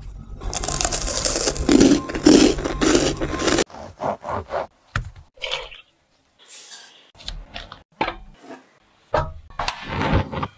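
Dry crunching and scraping of crisp, sugar-crusted toast for about three and a half seconds. It stops abruptly, and a string of short, separate kitchen noises follows as ingredients go into a small saucepan.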